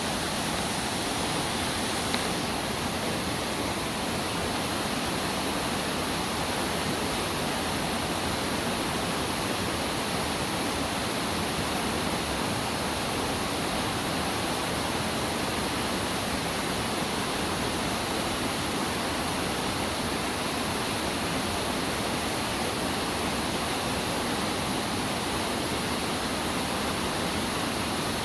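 Steady rush of flowing water, an even noise that neither rises nor falls.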